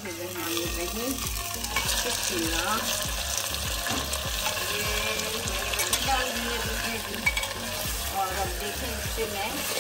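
Raw mutton pieces sizzling as they fry in hot oil with onions in a clay cooking pot, the first searing of the meat for a mutton karahi. A metal spatula stirring through them scrapes and clicks against the pot again and again.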